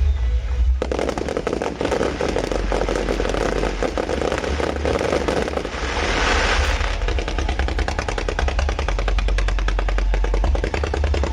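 A fireworks barrage: a rapid, dense run of sharp cracks like machine-gun fire, starting about a second in. A brief hissing rush comes about six seconds in.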